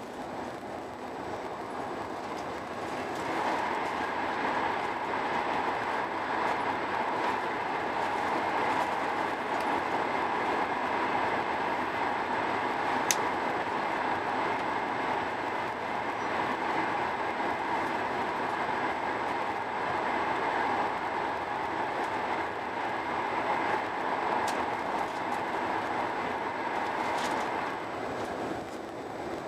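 Steady running noise of a high-speed train heard inside the passenger car, growing louder about three seconds in as the train runs into a tunnel and easing near the end as it comes out. A single sharp click about halfway through.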